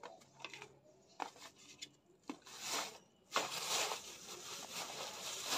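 Thin plastic bag crinkling and rustling as crisp fried fuchka shells are put into it by hand, with a few light ticks at first and then longer bursts of crinkling.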